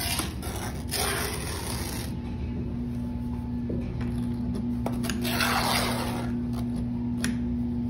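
Dry sand hissing as it is poured from a cup and scraped across a sand table, in two spells, about a second in and again around five seconds, over a steady low hum.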